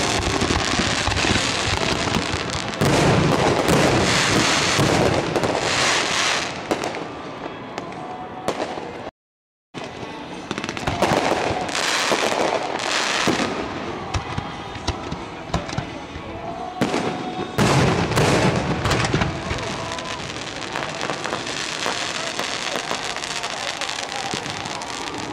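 Aerial fireworks display: a continuous barrage of launch thumps, shell bursts and crackling. The sound cuts out completely for about half a second a little before the middle.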